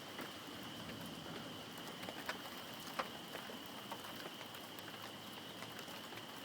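Light rain pattering, with scattered single drops ticking sharply close by. A faint steady high whine runs underneath.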